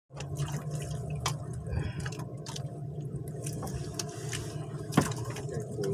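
Water sloshing and dripping on a small fishing boat while a wet handline is hauled in by hand, over a steady low hum, with scattered clicks. A sharp knock about five seconds in is the loudest sound.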